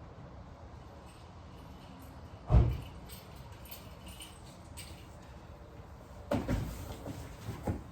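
One loud thump about two and a half seconds in, then a quick cluster of knocks and clatters near the end, as of parts or tools being handled and set down.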